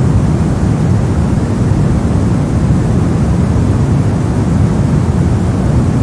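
Soft white-noise track for baby sleep: a steady, even noise with most of its weight deep down, fading toward the top, more rumble than hiss.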